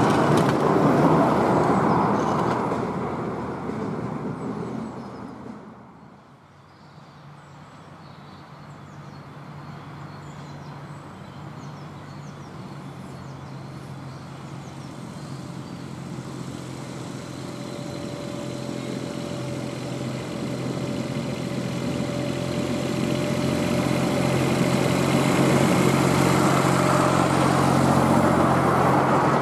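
Miniature railway train hauled by a Fenlow 4w-4wDH diesel-hydraulic locomotive: it runs away and fades out over the first six seconds, then the locomotive's diesel engine is heard approaching, a steady hum with a higher whine that grows louder until the train passes close near the end.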